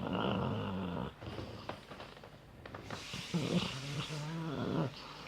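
Labrador retriever snoring in its sleep: two long snores, the first ending about a second in and the second starting about three seconds in.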